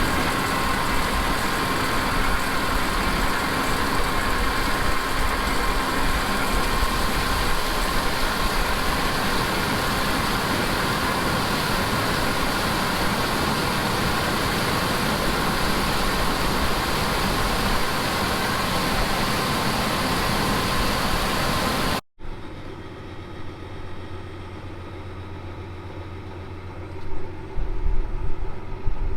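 Heavy harvest machinery running steadily, a dense mechanical noise with a steady whine through it. About two-thirds of the way in the sound cuts off abruptly to a quieter, low engine hum, which turns louder and rougher near the end.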